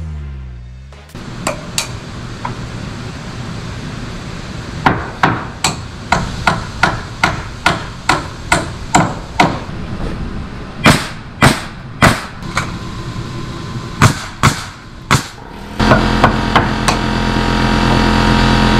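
Hammer driving nails into wooden purlins on roof trusses: runs of sharp blows, about three a second, in several bursts with short pauses. Near the end a steady machine hum starts.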